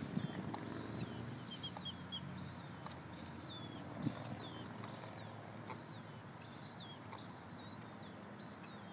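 Limpkin chicks peeping: a run of short, high, down-slurred peeps repeated every half second or so, with a single soft knock about four seconds in.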